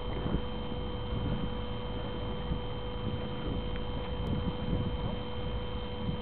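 Drilling rig machinery running: a steady hum of a few constant tones over a low rumble.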